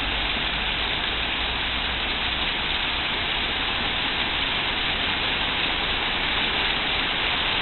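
Heavy hail mixed with rain coming down hard, a steady dense hiss of countless small impacts with no letup.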